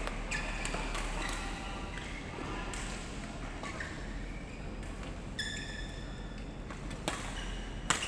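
Badminton play in a large echoing hall: a few sharp racket-on-shuttlecock hits, with high squeaks from court shoes on the court flooring between them.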